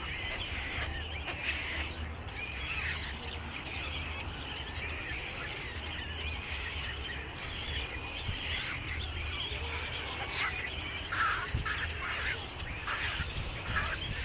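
A flock of small birds chirping and calling over one another in a continuous busy chatter, getting busier in the second half. A low steady hum runs beneath.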